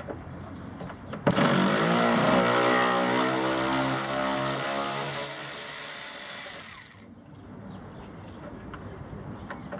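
Handheld power tool running for about six seconds, removing spoiler fasteners: it starts abruptly and winds up in pitch, runs steadily, eases slightly, then cuts off suddenly.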